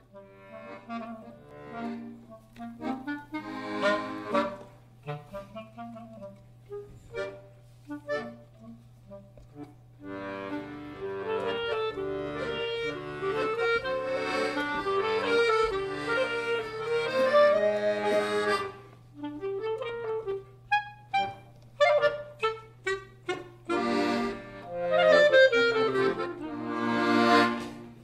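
Live acoustic band music led by accordion and clarinet, with sousaphone underneath. It starts with sparse, separated notes, fills out into a sustained passage about ten seconds in, breaks into short detached notes, then swells again near the end, over a steady low hum.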